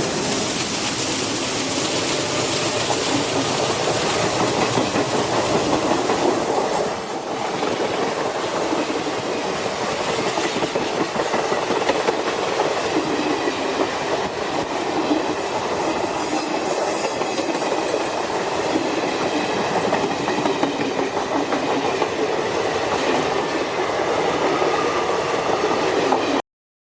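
Passenger train running along the track, a steady rail noise that cuts off suddenly near the end.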